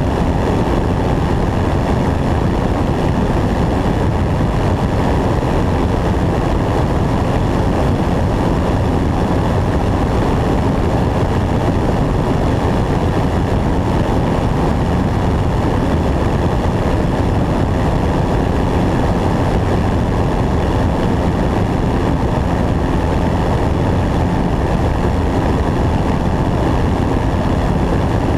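Single-engine propeller airplane in flight: a steady drone of engine and propeller mixed with wind rushing past a wing-mounted camera.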